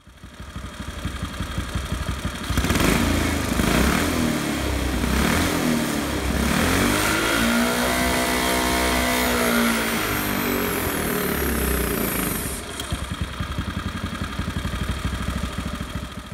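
Modified 212cc single-cylinder small engine running hard under load on a Prony brake dyno during a power pull. It builds up over the first couple of seconds, holds high revs with its pitch bending as the brake loads it, then drops to a lower, pulsing speed near the end.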